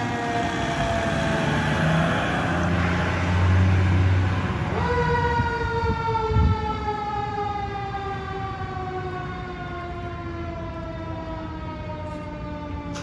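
Fire engine's siren winding slowly down in pitch, then spun back up sharply about five seconds in and left to coast down again as the truck moves away, the typical sweep of a mechanical siren. The truck's diesel engine revs under it in the first few seconds as it pulls out, with a brief low thump about six seconds in.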